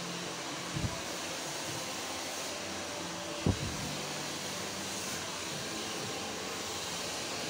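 Handheld hair dryer blowing steadily while hair is blow-dried, with two brief low knocks, one about a second in and a louder one about halfway through.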